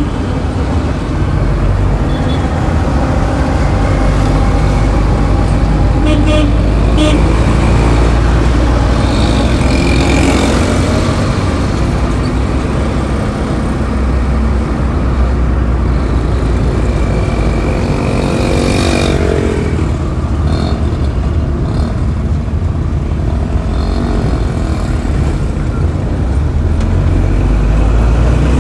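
Busy road traffic: a steady, loud rumble of engines and tyres, with a brief horn toot or two along the way.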